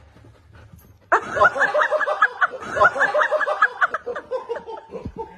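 A person laughing in a quick run of pulses that starts suddenly about a second in and tails off near the end.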